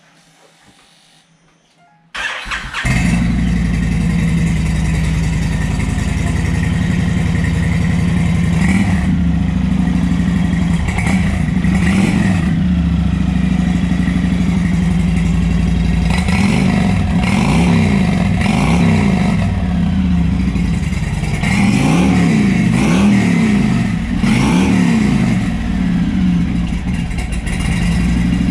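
A 2013 Honda VT1300CX's 1,312 cc liquid-cooled 52° V-twin is cranked by the electric starter about two seconds in. It catches within a second and runs through a KENTEC 2-into-1 slash-cut aftermarket muffler. From about sixteen seconds it is blipped several times, the pitch rising and falling with each rev. It starts readily without rattle and idles steadily, the sign of an engine in good order.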